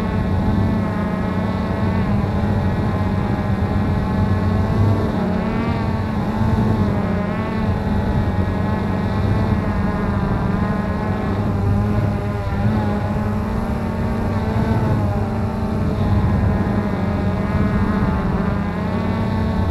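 Cheerson CX-20 quadcopter's motors and propellers buzzing steadily while it hovers low, heard from the camera it carries; the pitch wavers slowly up and down as the motors change speed to hold position.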